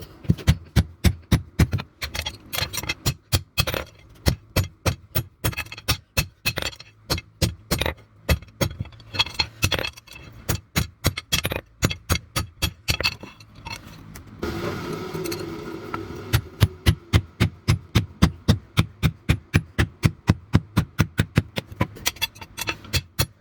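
Hammer blows on steel cut from a pickup truck leaf spring, struck against an anvil in quick runs of two to four blows a second. Near the middle the striking stops for about two seconds while a steadier scraping sound takes over, then the blows start again.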